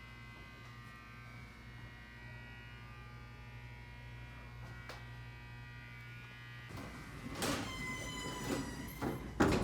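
Otis hydraulic elevator in motion, a steady electrical buzzing hum that cuts off about two-thirds of the way in. Then a ringing chime-like tone, and a loud knock near the end as the doors start moving.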